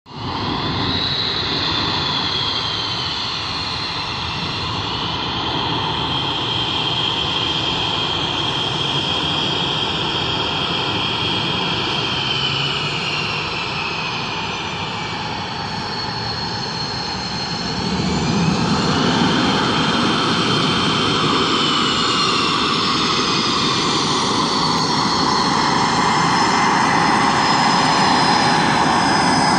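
Twin jet engines of a Navy F/A-18F Super Hornet running as the jet taxis closer on the runway: a steady jet roar under a high turbine whine that slides down in pitch, rises again as the sound grows louder about two-thirds of the way through, then slides down once more.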